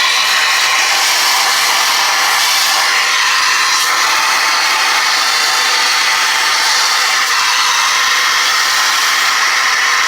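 Shop vac hose nozzle sucking dust and lint out of a space heater's insides: a loud, steady rushing hiss of air, its tone shifting a little now and then as the nozzle moves.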